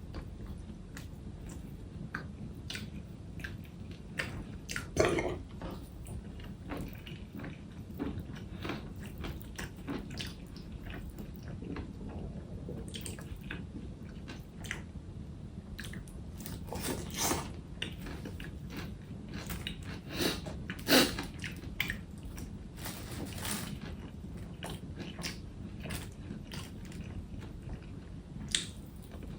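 Close-up eating sounds: someone chewing and biting food, with many small clicks and a few louder sharp bites spread through.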